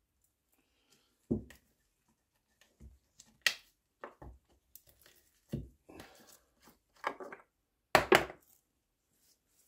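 Scattered knocks and clatter of wooden-handled carving gouges and a metal oil tin being picked up and set down on a wooden workbench, with a brief cloth rustle. The loudest knocks come near the end.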